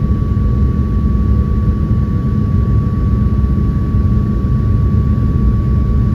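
Steady cabin noise inside an airliner on its landing approach: a constant rumble of engines and airflow with a thin, steady whine running through it.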